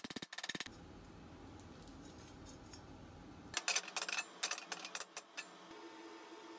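A fast rattle that stops within the first second, a low hum, then several sharp metallic clinks about four to five seconds in, like small metal parts being handled or set down.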